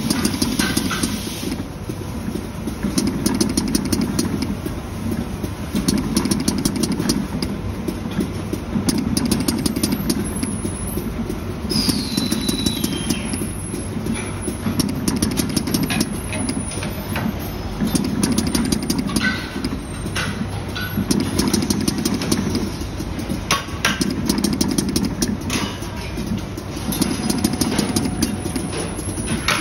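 A PVC micro-injection dispensing machine running: a steady mechanical drone that swells and fades every two to three seconds. Frequent short sharp clicks run through it.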